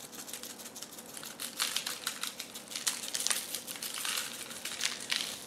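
Crumpled paper under a raw steak crinkling and rustling as seasoning is sprinkled over the meat by hand, giving irregular light crackles.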